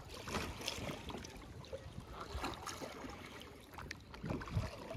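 Double-bladed kayak paddle dipping and pulling through river water, irregular splashes and water swishing as the strokes alternate side to side.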